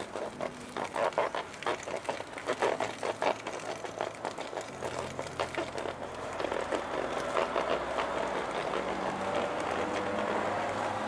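Hand-cranked sausage stuffer being turned, its mechanism clicking and rattling irregularly as coarse pork mince is pushed through the filling tube into the casing; after about five seconds it settles into a steadier rumble with a low hum.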